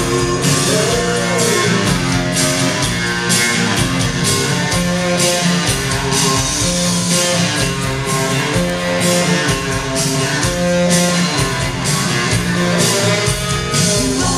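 Loud music with a guitar and a steady beat.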